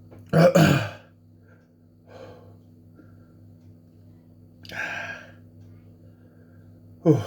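A man gasping and hiccupping from the burn of extremely hot chilli sauce: a loud sharp gasp about half a second in, a breathy exhale around five seconds, and a short sharp hiccup that falls in pitch near the end.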